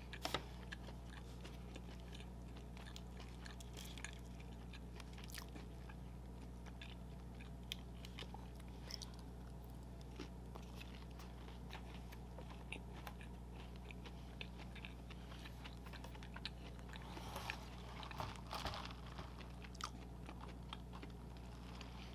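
A person eating McDonald's food: scattered bites, chewing clicks and small crunches, busiest about seventeen to nineteen seconds in, over a steady low hum.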